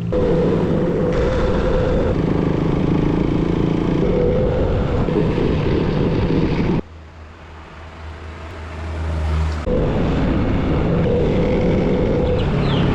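A motor vehicle's engine running as it drives, loud and steady. About seven seconds in it cuts abruptly to a quieter low hum, and about three seconds later it cuts back to the loud running.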